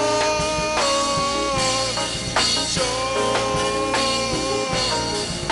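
Worship music with a drum kit keeping a beat under long held, slightly wavering notes.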